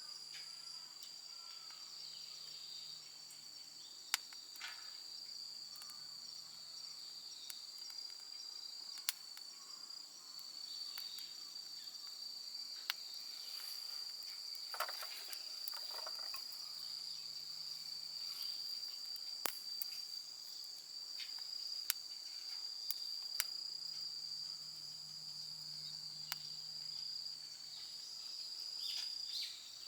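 Steady high-pitched chorus of insects, with scattered sharp clicks and snaps over it.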